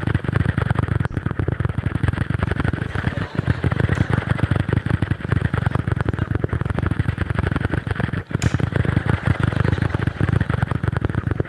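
A man imitating an engine with his mouth: a long, rapid tongue trill into the microphone, steady with a couple of brief breaks.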